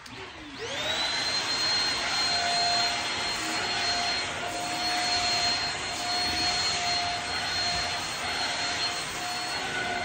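Shark Rocket Pet corded vacuum, used as a handheld with an attachment, switched on and spinning up in the first second, then running steadily: a high motor whine over the rush of air.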